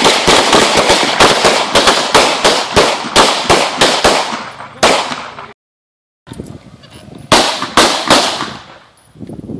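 Pistols fired in quick succession by several shooters at once on an outdoor range, about four shots a second, each shot trailing off in echo, until about five seconds in. After a short break come three more shots close together.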